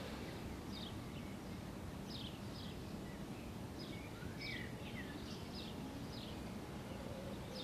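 Quiet outdoor ambience with a small bird chirping over a low, steady background rumble: short, high notes that slide down in pitch, roughly one a second, some in quick pairs.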